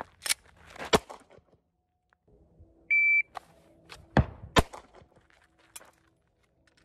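An electronic shot timer gives one short high beep about three seconds in. A little over a second later two 9mm pistol shots sound about half a second apart, with other sharp cracks and clicks earlier on.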